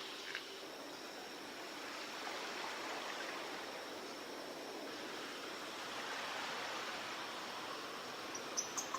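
Surf washing on a tropical beach: a steady hiss of water that swells and eases slowly, with a few sharp clicks near the end.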